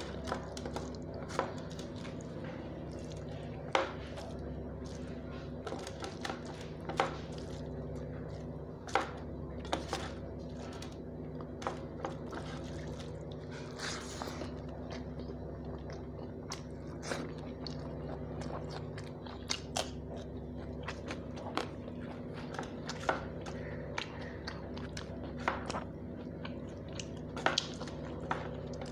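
Close-up eating sounds of rice and dalma eaten by hand: chewing with frequent short wet clicks and smacks, and fingers squishing rice on a steel plate, over a steady low hum.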